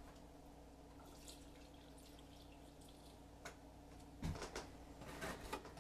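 Near silence: faint room hum, then a few soft knocks and clicks in the last two seconds as things are handled on a kitchen counter.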